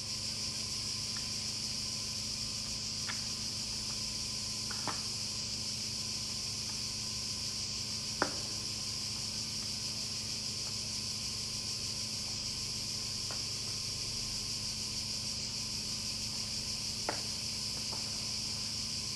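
Cicadas droning steadily in high summer, with a steady low hum underneath and a few sharp snaps, the loudest about eight seconds in.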